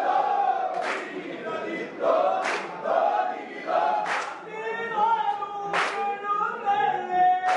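A group of voices singing together in chorus, holding long wavering notes, with a sharp beat about every second and a half to two seconds.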